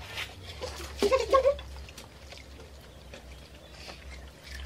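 A short pitched vocal sound from a person about a second in, an "mm"-like noise of eating, over scattered small clicks and rustles of hands handling food at the table.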